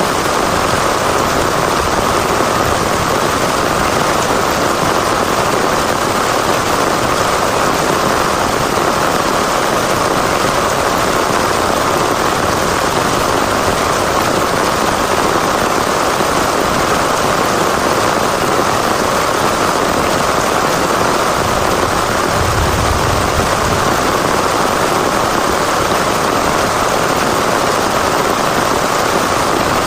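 Heavy rain falling steadily and loudly, with a brief low rumble a little over two-thirds of the way in.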